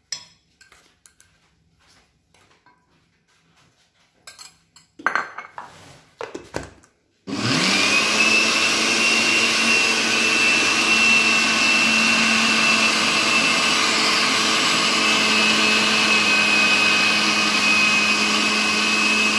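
Countertop blender with a glass jug, starting about a third of the way in and then running steadily with a high whine as it mixes a thick egg, tomato and flour batter. Before it starts there are a few light knocks and clicks as the jug is handled.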